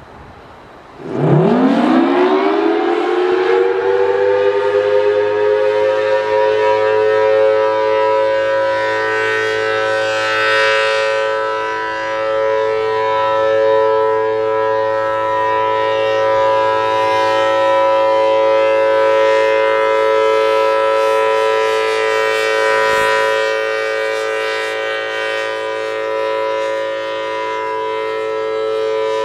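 Federal Signal Thunderbolt 1000T blower siren with a 4/5-port dual-tone rotor winding up about a second in. Its pitch rises fast and settles into a loud, steady two-note tone a major interval apart: the steady Alert signal. The level wavers slightly.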